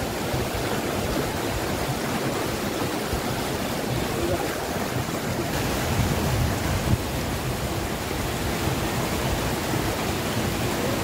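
Steady rushing noise with a fluctuating low rumble, and a couple of brief knocks about six and seven seconds in.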